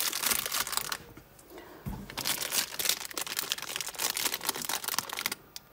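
Clear plastic bags of cotton crochet thread balls crinkling as they are handled and shifted, with a short lull about a second in and a soft thump near two seconds.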